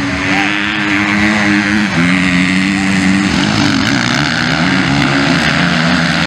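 Motocross bike engines running hard as two dirt bikes power through a turn on a dirt track, the engine note rising and falling as the riders work the throttle.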